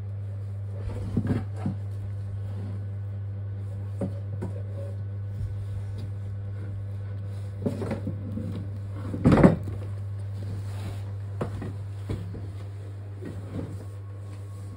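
Scattered knocks, creaks and clatters of a wicker basket as a baby monkey climbs on it and pulls at its rim, the loudest clatter about nine seconds in, over a steady low hum.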